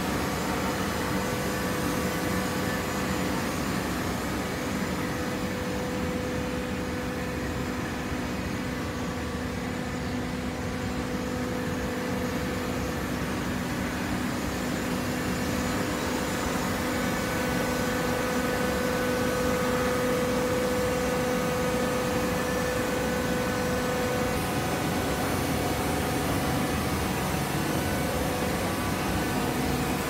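Fully automatic horizontal waste paper baler running: a steady machine hum with a constant whine in it.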